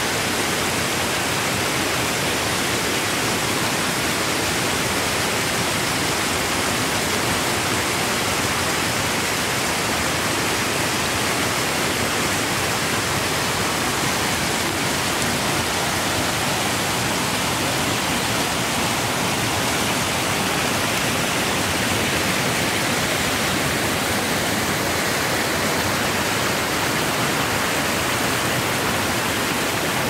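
Spring water gushing from a cave and tumbling down a rocky creek bed as a foaming whitewater torrent, a steady, even rush.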